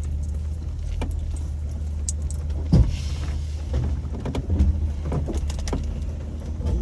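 A Jeep's engine running low and steady, with scattered clicks and knocks and one heavier thump about three seconds in.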